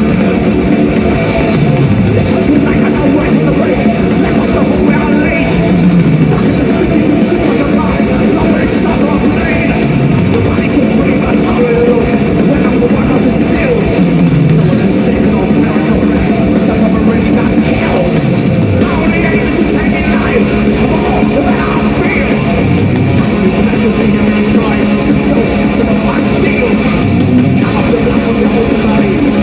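Live thrash metal band playing loud and dense: distorted electric guitars, bass and fast drums through a concert sound system.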